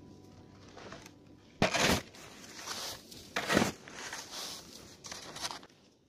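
Snow crunching as a person moves about on it with a snow shovel: a series of short, loud crunches, the strongest about one and a half and three and a half seconds in.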